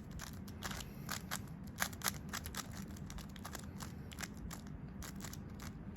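Rubik's cube being turned quickly by hand, its plastic layers clicking and rattling in an irregular run of several clicks a second.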